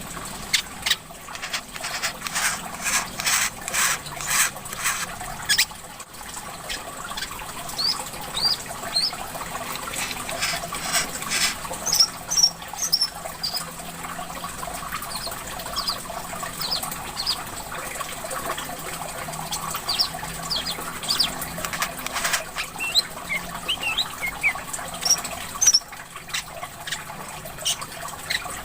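Small songbirds calling in quick, high, sharp chirps, some in rapid runs, over steady trickling water.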